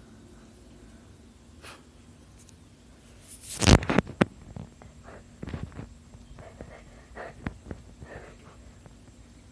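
Handling noise from a handheld camera being moved: a sudden loud rustle about three and a half seconds in, a click just after, then scattered soft knocks and rustles over a faint steady hum.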